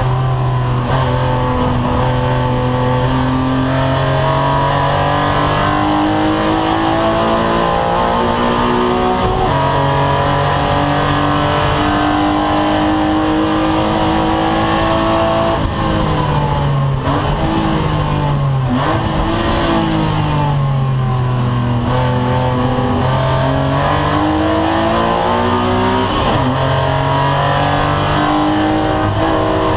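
Engine of a 2-litre BMW race car heard from inside the cockpit at racing speed, its revs climbing and stepping down as it changes gear. Near the middle there is a run of quick drops and rises in pitch, with road and wind noise under it throughout.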